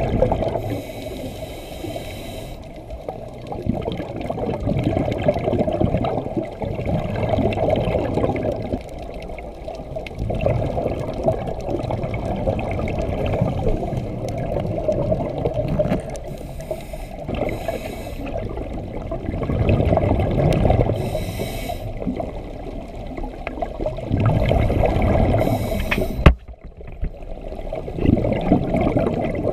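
Scuba diver breathing through a regulator underwater: a hissing inhale now and then, alternating with surging bursts of exhaled bubbles, in a slow cycle every few seconds.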